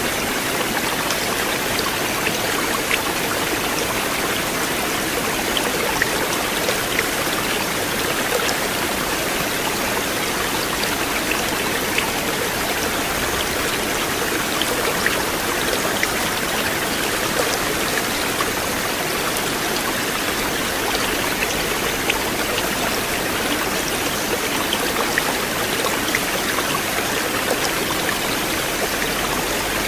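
River water flowing steadily, an even rushing with small splashes and drips scattered through it.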